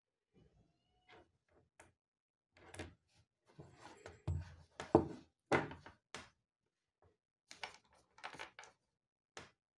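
Littmann stethoscope parts handled on a wooden table: scattered clicks, knocks and rubbing of metal and rubber pieces. The handling is busiest and loudest in the middle, about five seconds in, then turns sparse.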